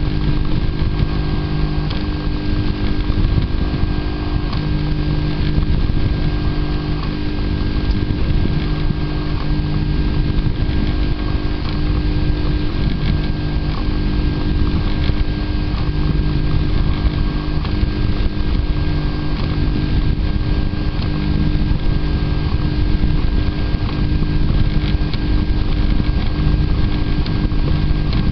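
Prusa i3-type DIY 3D printer running a print: its stepper motors hum in pitched tones that switch on and off every second or two as the print head and bed move back and forth, over a steady mechanical hum.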